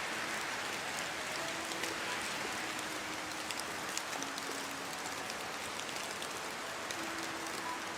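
Steady heavy rain falling, an even hiss with scattered sharp drop ticks on top.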